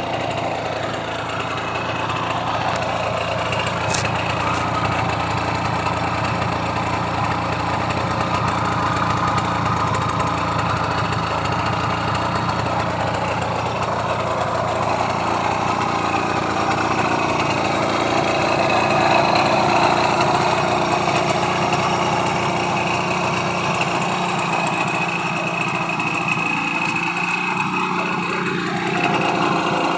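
A small engine idling steadily.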